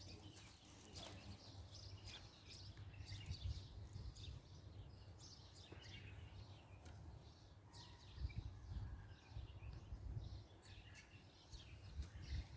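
Faint birds chirping, many short calls scattered throughout, over a low uneven rumble of wind on the microphone.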